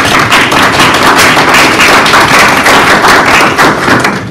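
A small audience applauding: a dense patter of hand claps that dies away near the end.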